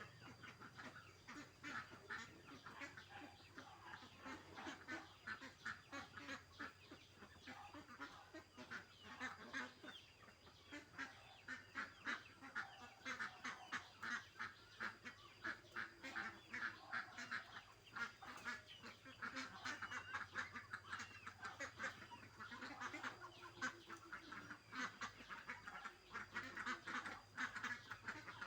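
Poultry calling, a faint, continuous chatter of many short calls.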